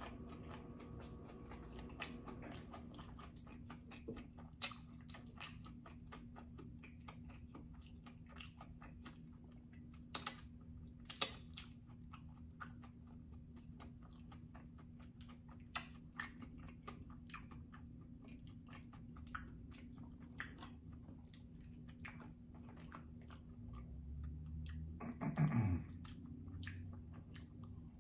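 Close-miked chewing of sushi, with many small wet mouth clicks and smacks over a faint steady low hum. About 25 seconds in comes a short voiced 'mm' that falls in pitch.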